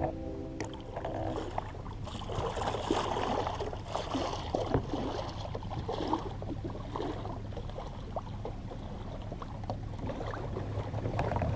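Water splashing and lapping against a jon boat's hull as the boat moves, over a steady low hum from its Minn Kota electric trolling motor.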